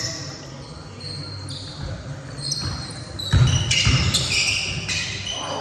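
Basketball bouncing on a hardwood gym floor, the heaviest thumps a little past halfway, with short sneaker squeaks.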